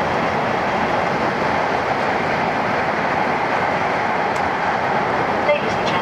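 Steady running noise heard inside a moving E7 series Shinkansen car: an even, unbroken rumble and hiss.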